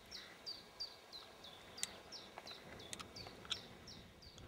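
A small songbird repeating a short, high, falling whistle about three times a second, faint and steady. A few sharp clicks sound in between.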